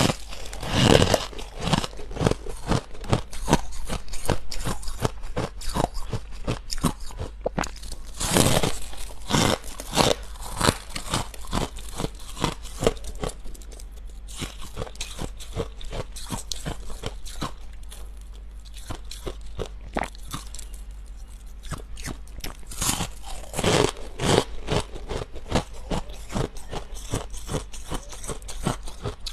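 Close-miked biting and chewing of squeaky freezer frost: rapid, irregular crunches. Big bites come in louder clusters about eight seconds in and again near twenty-three seconds, with steady chewing crunches between them.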